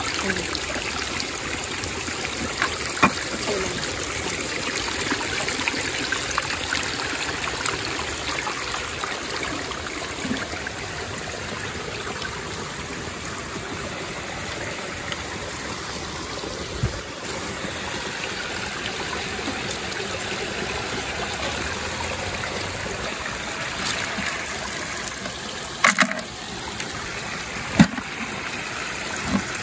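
Creek water running steadily over stones, with a few sharp knocks about 3 s in and near the end.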